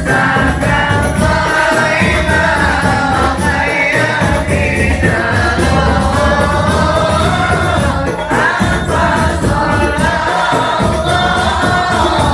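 A group of voices singing sholawat, Islamic devotional song, together with musical accompaniment.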